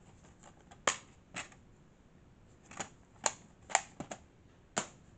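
Plastic DVD cases clacking as they are handled and set against each other: about seven sharp clicks at uneven intervals.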